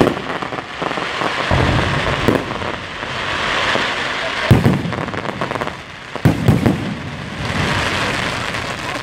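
Aerial fireworks: a continuous dense crackling from bursting stars, punctuated by several sharp bangs of shells exploding, the loudest about four and a half seconds in and a close pair around six and a half seconds.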